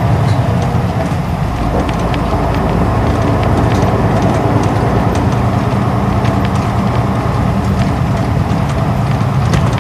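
Isuzu Erga city bus's straight-six diesel engine running steadily as the bus travels along, heard from inside the passenger cabin.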